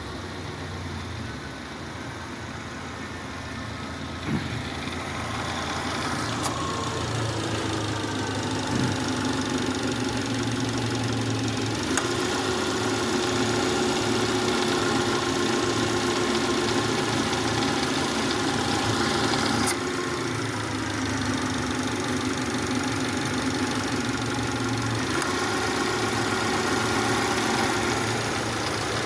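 2011 Subaru Legacy engine idling steadily, with a few sharp clicks; the car is being checked for noise from an A/C compressor said to be faulty. The running sound gets louder about five seconds in.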